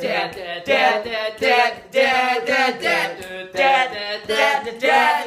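Three teenage boys singing a cappella together, barbershop-trio style, in short rhythmic sung phrases with no instruments.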